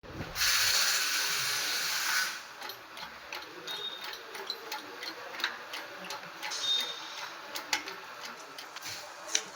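BMW X1 diesel engine giving its problem noise: a loud hiss for about two seconds near the start, then a run of irregular ticks and clicks over a steady background.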